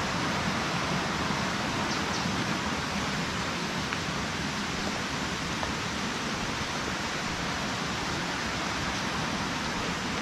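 Steady, even rushing hiss with no pitch or rhythm, like running water.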